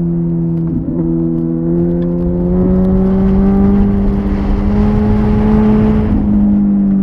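Kawasaki ZZR 1400's inline-four engine through a Delkevic exhaust running steadily under load. Its pitch climbs slowly for a few seconds, with a growing hiss, then drops back about six seconds in.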